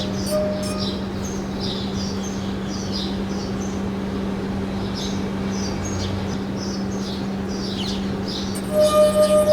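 Birds chirping over and over above a steady low hum. Near the end a singing glass starts up: a clear tone that pulses about two to three times a second.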